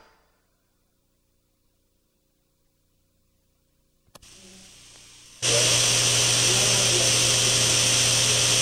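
Near silence for about four seconds, then a click and a faint hiss. About five seconds in, a loud, steady mechanical whir with a buzzing hum starts abruptly and holds without change.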